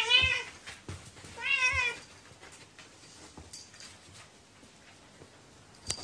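House cat meowing twice: two short meows about a second and a half apart, each rising and then falling in pitch.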